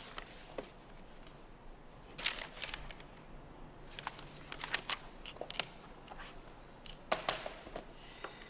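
Small clicks and rustles of someone working at a desk, coming in short clusters a couple of seconds apart.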